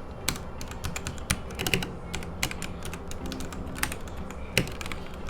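Typing on a Royal Kludge RK100 mechanical keyboard with stock, unmodded and unlubed Outemu red linear switches and honey milk keycaps: a quick, irregular run of keystroke clacks, several a second.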